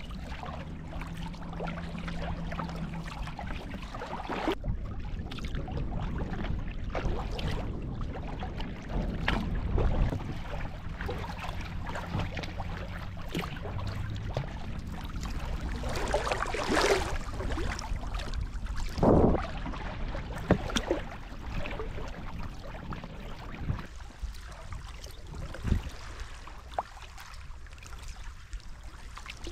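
Water lapping and gurgling along the hull of a sea kayak as it is paddled over calm sea, with a low steady rumble underneath. Short splashes come now and then, and two louder ones come a little past the middle.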